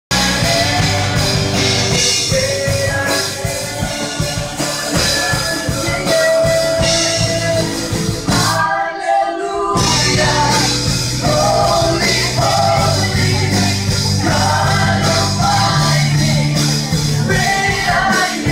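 Live worship band playing and singing: voices over electric guitar and keyboard. The sound thins out for about a second just before halfway.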